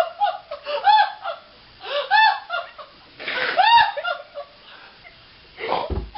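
High-pitched laughing in short squealing bursts, clustered about a second apart, dying away after about four seconds, with a breathy burst near the end.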